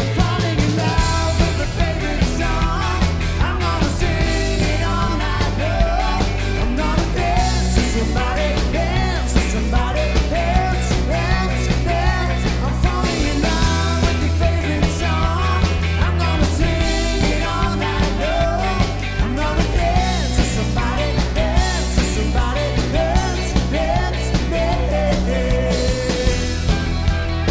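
Rock music with a sung vocal line over a steady drum beat.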